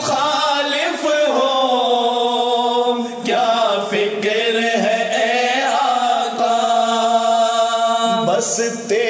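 Male voices chanting a devotional Urdu ilteja in long, drawn-out melodic notes.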